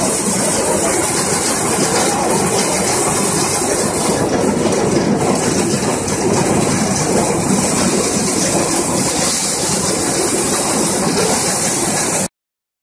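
Paddy and multicrop thresher running under load as paddy straw is hand-fed into it: a loud, steady mechanical din with a strong hiss from the threshing drum and fans. It cuts off abruptly just before the end.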